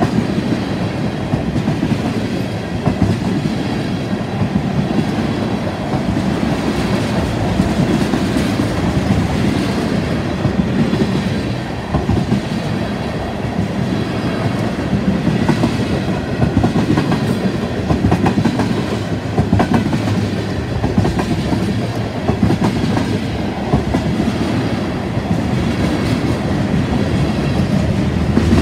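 Freight train of tank cars and open-top hopper cars rolling past: a steady rumble of steel wheels on rail with a rapid clickety-clack as the wheels cross rail joints.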